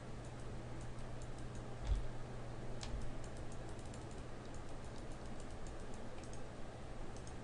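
Faint, scattered clicks from a computer mouse and keyboard while weight painting in Blender, over a steady low hum.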